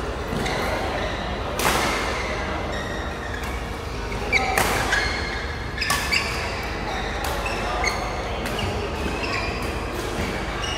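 Badminton rally: rackets striking the shuttlecock with sharp echoing smacks every second or few, mixed with short squeaks of court shoes on the floor, in a large hall with other courts in play.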